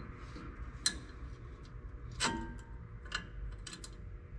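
New brake pad being pushed and worked into its caliper bracket and slider clips: a few scattered light metal clicks and taps, the loudest about two seconds in, over a faint low steady hum.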